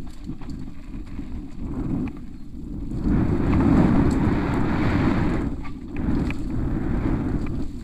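Wind buffeting the microphone of a camera on a downhill mountain bike racing down a dirt forest trail, over the rumble and rattle of the bike on the rough ground. The rush swells loudest a few seconds in, then eases near the end.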